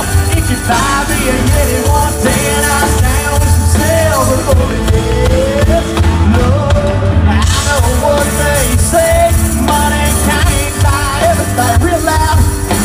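Live country band playing through a large outdoor sound system, heard from within the audience: a melody line over a steady beat with bass and drums.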